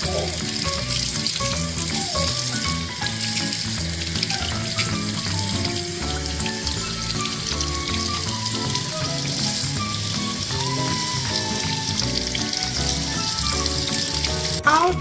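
Tap water running steadily into a stainless steel sink and over a whole raw fish being rinsed by hand. Background music plays underneath.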